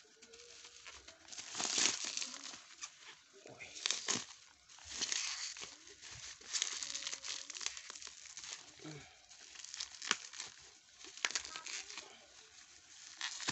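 Plastic wrapping and packing tape crinkling and tearing as a parcel is pulled open by hand, in irregular bursts with a few sharp cracks.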